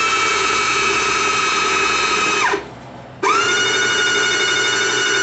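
Old 115-volt electric winch's motor, just reassembled, running free under test with a steady high whine: it stops abruptly about two and a half seconds in, starts again about half a second later, and winds down with a falling whine at the end. The motor is working again.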